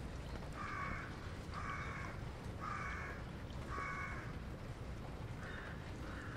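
A crow cawing: four harsh caws about a second apart, then two more near the end, over a steady low background rumble.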